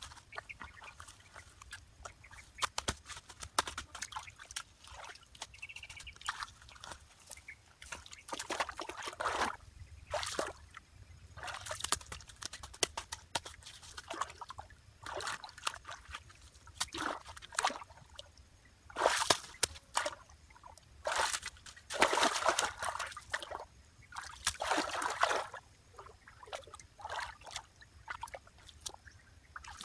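Hands working in a shallow stream, scooping and packing wet mud and sloshing the water, in irregular splashes with a louder run about two-thirds of the way through.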